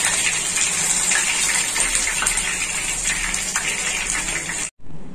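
Masala-coated prawns deep-frying in hot oil: a steady sizzling hiss with scattered crackles, which cuts off abruptly near the end.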